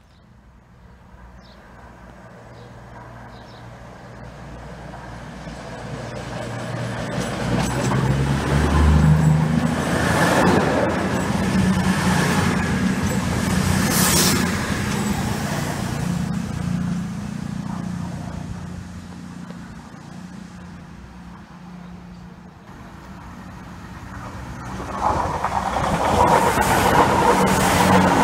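CrossCountry Voyager diesel-electric multiple unit running through the station without stopping, its underfloor diesel engines growing louder as it nears, staying loud as it passes, then fading away. About 25 s in, a Great Western Railway Class 166 diesel unit comes in along the platform, its engine loud.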